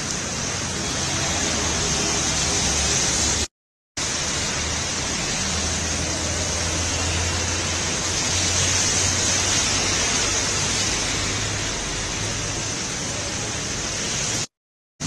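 Heavy rain pouring onto a wet paved road: a steady, even hiss, with a low rumble underneath for several seconds in the middle. The sound cuts out briefly twice, about three and a half seconds in and near the end.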